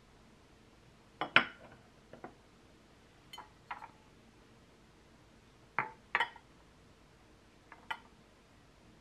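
A ceramic plate and a glass mug being set down on a countertop: a handful of short, sharp clinks and clacks at irregular intervals, the loudest about a second in.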